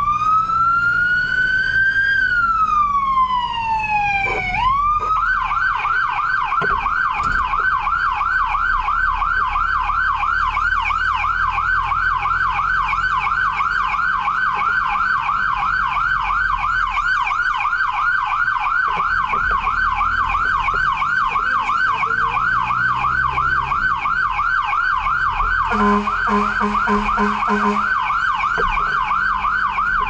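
Fire truck's electronic siren heard from inside the cab: a slow wail that rises and falls over the first few seconds, then switches to a fast yelp that keeps going. Near the end a horn sounds in a quick run of short blasts over the truck's low engine rumble.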